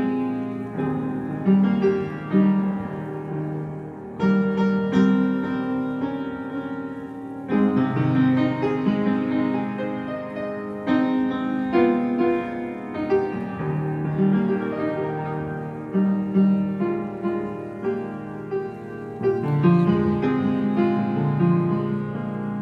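Upright piano played by hand: chords under a melody line, notes ringing on, with a few louder chords struck now and then.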